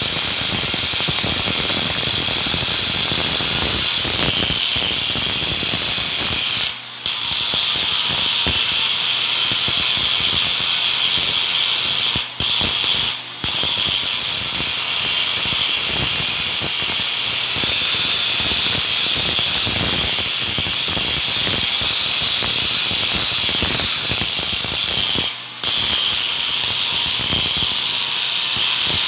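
Stick (SMAW) welding arc crackling and sizzling steadily, cutting out for a moment four times: about seven seconds in, twice around twelve and thirteen seconds, and again about twenty-five seconds in.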